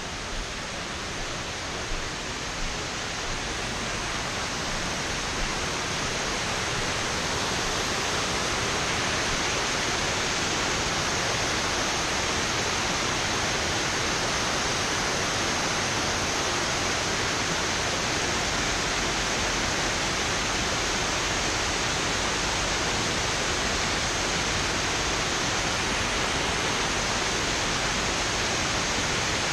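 Small river waterfall spilling over a ledge: a steady rushing of water that grows louder over the first several seconds, then holds even.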